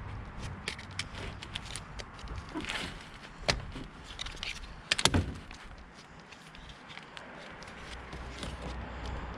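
Scattered clicks and knocks from hand work on car parts, with one louder knock about three and a half seconds in and a short cluster of louder knocks about five seconds in.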